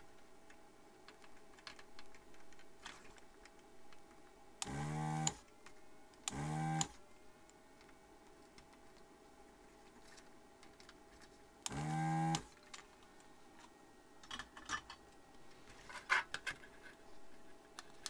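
A small electric vacuum desoldering pump runs in three short whirring bursts, each under a second and spinning up in pitch, as solder is sucked off a capacitor's leads: two close together about five seconds in and a third some five seconds later. Light clicks and taps of tools come between the bursts.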